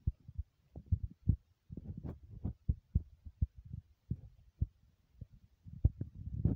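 A dog chewing on a raw kangaroo spine bone: irregular, dull, low crunches and gnawing clicks, a few a second.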